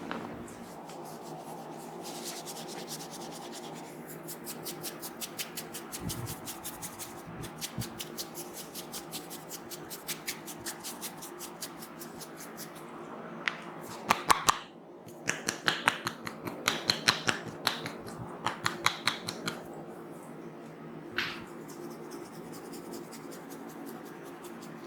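Hands massaging a head: fast rubbing and scratching through the hair, then, about halfway through, a run of louder sharp clicks and snaps.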